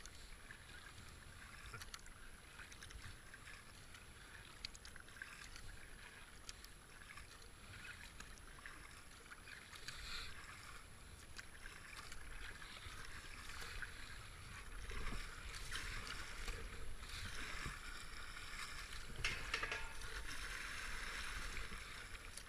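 Kayak being paddled: paddle blades dipping and water splashing and rushing along the hull, growing louder in the second half.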